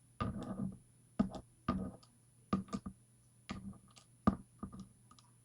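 Small metal lock pins and tools clicking and tapping on a work surface as they are handled, about ten irregular sharp clicks, some followed by a brief scrape.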